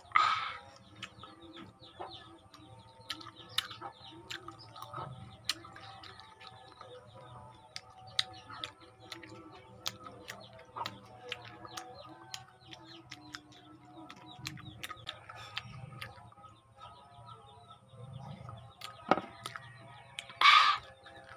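Close mouth sounds of eating a raw lemon wedge: wet clicks and smacks of chewing and sucking, with a louder, brief slurp at the start and another near the end.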